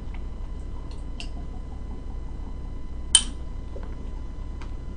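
A few light clicks and one sharp clink about three seconds in from a Ramune soda bottle's glass marble as the bottle is drunk from and tipped, over a steady low hum.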